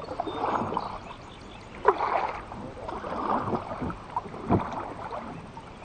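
Kayak paddle strokes swishing through the water, about one every second and a half, with two sharp knocks.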